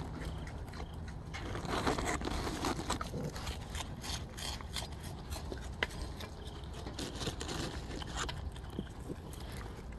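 Raccoons eating close by: wet chewing and munching with many small irregular clicks and scrapes as they handle the food, over a steady low background hum.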